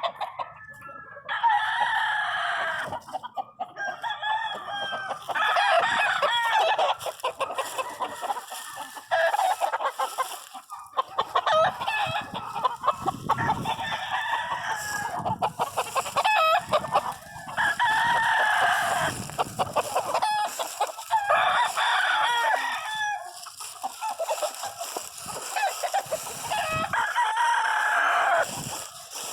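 Chickens: roosters crowing again and again, a long crow every three or four seconds, with clucking in between.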